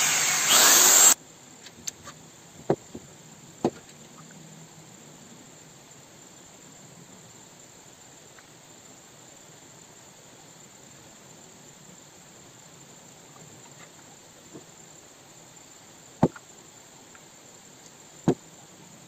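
A power drill or driver runs for about a second and cuts off suddenly. Then come a few sharp knocks and clicks as the circular saw's metal guard and base plate are handled and fitted back on: three in the first four seconds and two more near the end.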